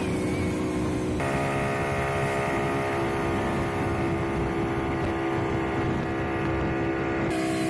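Outboard motor on a speedboat running steadily at towing speed, a constant drone with several steady tones, over wind on the microphone and the rush of the wake. The sound shifts abruptly about a second in and again near the end.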